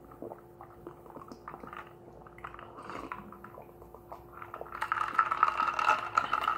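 Sipping and swallowing from a plastic cup of iced tea mixed with ginger ale, with small wet mouth clicks. From about five seconds in, a steady crackling fizz of the carbonated drink.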